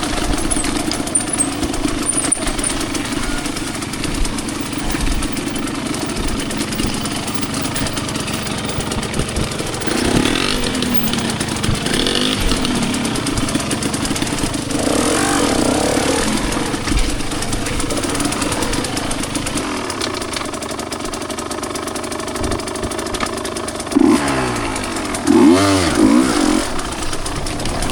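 Two-stroke dirt bike engine running under changing throttle, with several quick revs that rise and fall in pitch near the end.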